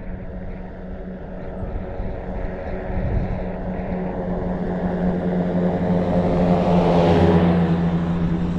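Tractor's diesel engine driving past on the road, its steady drone growing louder as it approaches and passing closest near the end, with tyre noise rising as it goes by.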